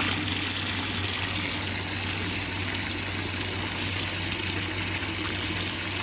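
Water gushing steadily from a discharge hose into a bucket of dirty vinegar solution, splashing on the surface. The flow jumps up at the start as the valve is opened further, then holds steady. This is the fresh-water rinse that flushes the descaling vinegar out of a Navien NCB-240E combi boiler's heat exchanger.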